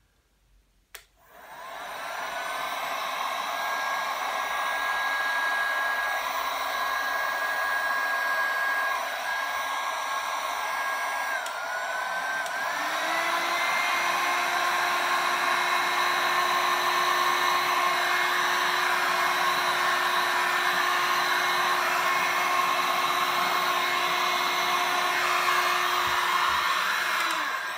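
Electric heat gun running, a steady rush of blown air with a motor whine. It starts about a second in. About twelve seconds in its whine dips briefly, then climbs to a higher pitch and runs a little louder. It dies away near the end.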